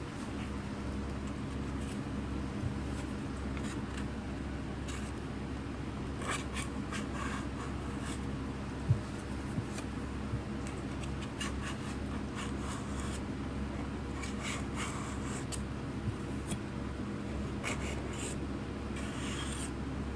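A scraper scraping paint softened by citrus paint stripper off a metal water jug, in short irregular strokes that come more often in the second half, with one sharp knock about nine seconds in.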